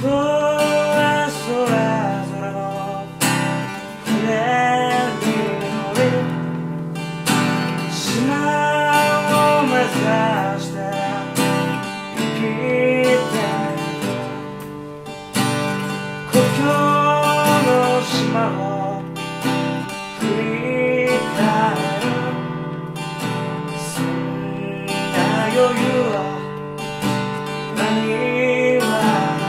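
A man singing live to his own strummed steel-string acoustic guitar.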